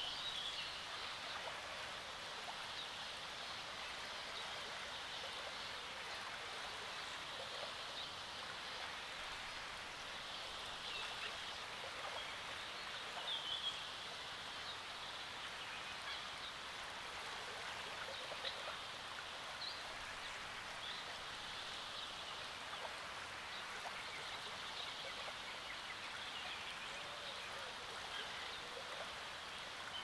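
Small lake waves lapping and splashing steadily at the shore, with faint, brief bird chirps now and then.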